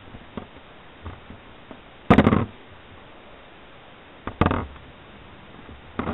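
Metal Beyblade tops and launcher handled over a stadium: a few light clicks and three short noisy bursts, each about half a second long, the last as a top is launched spinning.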